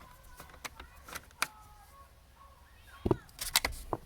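Small clicks and knocks of a screwdriver and loose screws worked against a car's plastic steering column cover, with a cluster of louder knocks about three seconds in.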